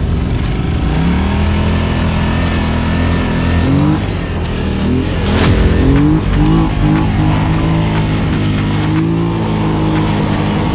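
Quad bike (ATV) engines under racing throttle, the pitch climbing, dropping back and climbing again several times as the riders accelerate, over a steady low drone.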